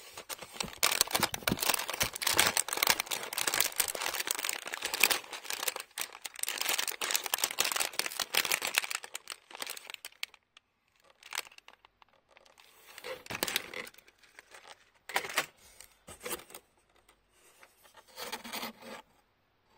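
Clear plastic bags of loose Lego pieces being handled and crinkled in a cardboard box: dense crinkling for about the first ten seconds, then a few short bursts of crinkling.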